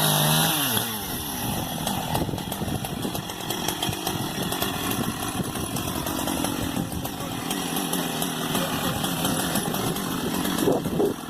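Chainsaw running steadily under load, cutting branches off a large tree.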